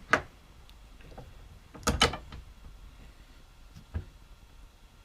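Wooden boards being handled and fitted together on a bench, knocking against each other and the bench top: one sharp knock at the start, a double knock about two seconds in, and a duller knock near four seconds.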